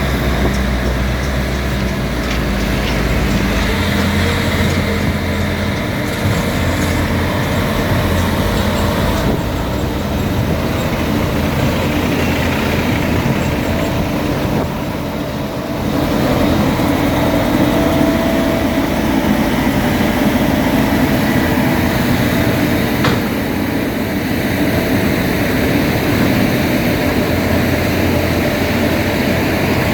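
Bobcat T450 compact track loader's diesel engine running steadily, dipping in level briefly about halfway through and then rising again.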